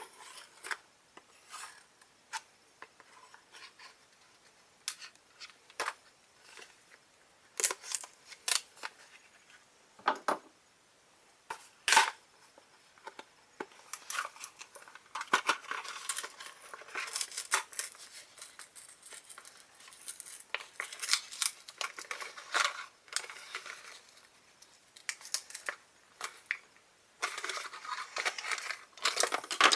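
Action-figure packaging being opened by hand: irregular clicks, snips and rustling of cardboard and plastic, with short quiet gaps.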